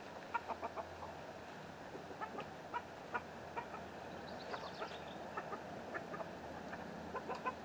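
Backyard hens clucking faintly in short, scattered clucks, with a brief higher chirping about halfway through.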